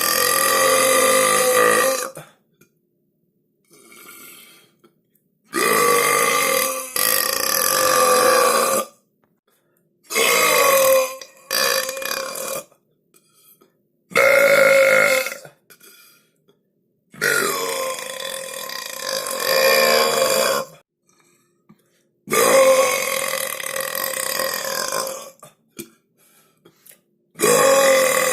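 A person belching loudly and deliberately, about nine long voiced burps one after another with short silent gaps. Several are drawn out for two to three seconds.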